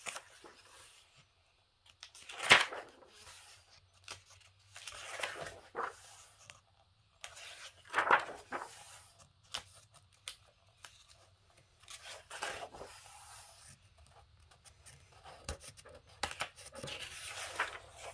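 Pages of a coloring book being turned one after another, each turn a short papery swish every few seconds, with light clicks of paper handling in between.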